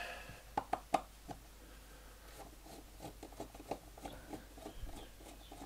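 A screwdriver and hands working the screws of the rubber feet on a small metal-cased preheater: a few sharp clicks about half a second to a second in, then a run of light ticking and scraping as the screw is turned out.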